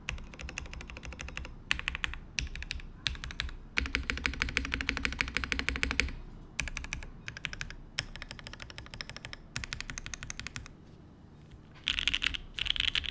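Typing on a TGR 910 RE top-mount mechanical keyboard with lubed 43 Studio Opblack switches, a polypropylene plate and GMK Striker keycaps: runs of rapid keystroke clicks broken by short pauses, a long fast run about four seconds in, and a few louder bursts near the end.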